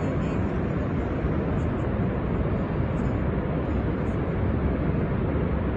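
Steady roar of Niagara's American Falls: a loud, even, low rush of falling water that does not let up.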